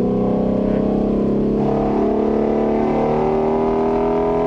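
Car engine heard from inside the cabin, pulling hard under acceleration. Its pitch climbs steadily, drops once about three seconds in as it shifts up a gear, then climbs again.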